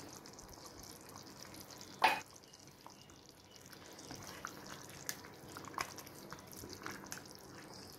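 Chicken korma gravy simmering in an uncovered pot, bubbling with small plops, with a single sharp clack about two seconds in. Later a spatula stirs through the thick gravy, giving soft wet scrapes.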